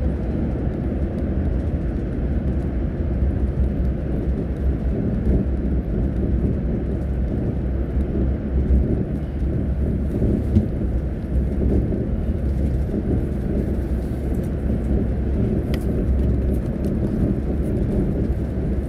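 Steady low rumble of a bus's engine and tyres heard from inside the cabin while it drives along in traffic.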